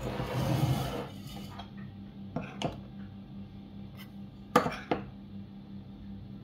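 A metal spoon clinking against a stainless-steel mesh sieve and bowl as flour is spooned into the sieve for sifting. A second of rustling at the start, then a few sharp separate clinks, the loudest about four and a half seconds in.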